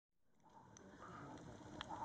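Faint crackling of a campfire, with a few sharp pops, fading in from silence.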